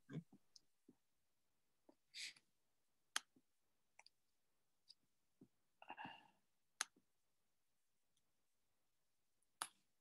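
Near silence: room tone broken by a few faint, sharp clicks and a couple of brief soft noises.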